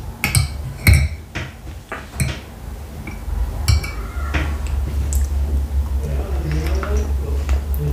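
Close-miked eating sounds: a handful of sharp clicks and taps of a plate while a khinkali dumpling is picked up with the fingers, then biting into the dumpling. A steady low rumble runs under the second half.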